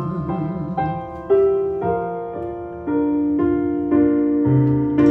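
Instrumental piano passage of a slow ballad recording with no singing: single notes and chords struck about twice a second and left to ring, a low bass note joining near the end.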